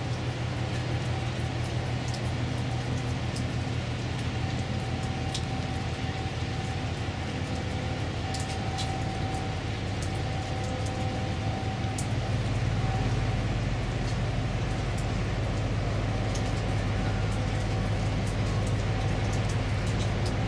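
Steady low drone of a passing container ship's engines, growing louder about twelve seconds in as the ship's aft superstructure comes abreast, with a few faint ticks scattered through it.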